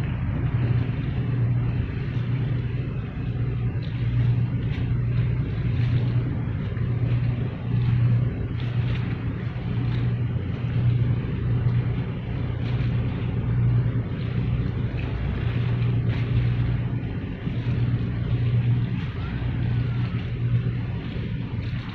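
Marine diesel engine running steadily: a loud, low hum that pulses regularly, with a fainter hiss above it.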